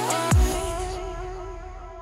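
Background electronic music: one deep bass hit falling in pitch just after the start, then held chords fading out.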